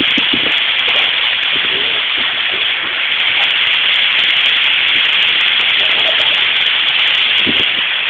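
Waterfall rushing steadily: a loud, even hiss of falling water.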